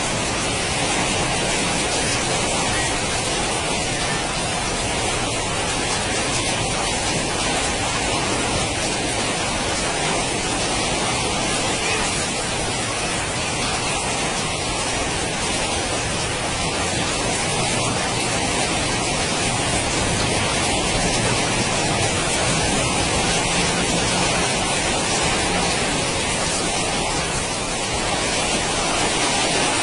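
Strong storm wind rushing steadily, a constant even noise, from the thunderstorm that is producing a tornado funnel.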